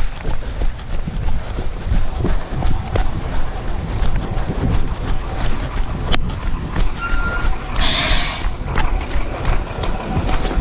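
Rear-loader garbage truck's diesel engine running, under wind rumble on the chest-mounted microphone, with a short hiss of air let out by the truck's air brakes about eight seconds in.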